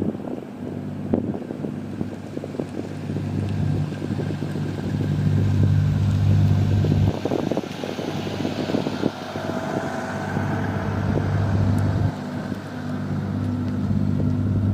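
A boat's diesel engine running close by, its low note getting louder and then dropping several times as with throttle changes, with wind buffeting the microphone.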